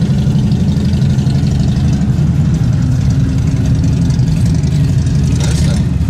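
Motorcycle engine running loud and steady, with a low, rapid, uneven beat.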